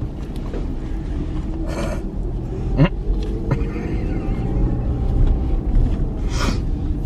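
Steady low road and engine rumble inside a moving car's cabin, with a couple of brief hissy bursts.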